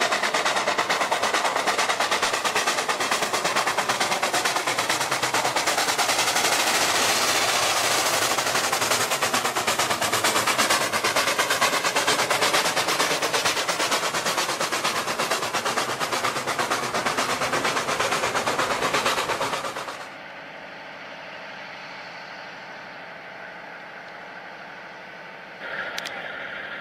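Steam locomotive working hard, its exhaust beating from the chimney in a rapid, dense stream of chuffs. About twenty seconds in the beating stops suddenly and a quieter steady rumble remains; near the end a louder hiss starts.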